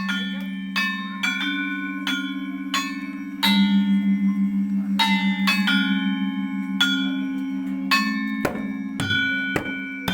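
Balinese gamelan: bronze metallophone keys struck one at a time in a slow, free opening phrase, each note ringing on, over a long low bronze hum that pulses with the shimmering beat of the paired tuning.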